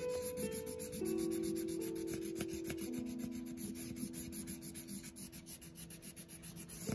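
Colorless blender pencil rubbing on paper in quick back-and-forth strokes, burnishing colored pencil to fill the white gaps. Soft background music with held notes plays underneath.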